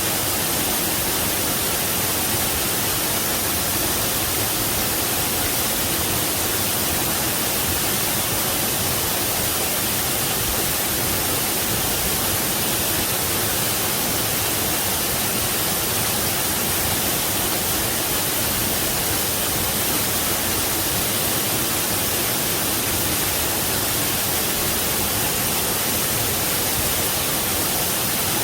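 Waterfall: a steady, unbroken rush of falling water, even throughout and heaviest in its high hiss.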